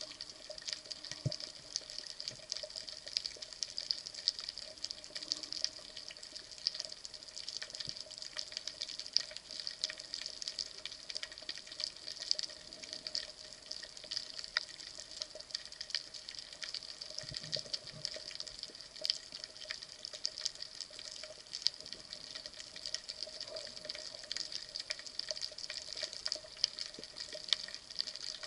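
Underwater ambience picked up by a diving camera: a steady hiss with dense, irregular crackling clicks and a faint steady hum, plus a couple of soft knocks.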